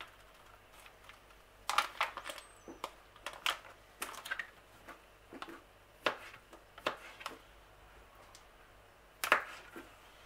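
Kitchen knife slicing packaged beetroot on a plastic cutting board. The blade knocks against the board at irregular intervals, with louder knocks about two seconds in and again near the end.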